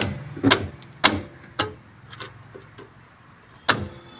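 Sharp metallic taps on a flat screwdriver wedged against the auto-adjuster spring of a Hyundai Santro rear drum brake shoe, knocking the spring loose: four taps about half a second apart, a few faint clicks, then one more tap near the end.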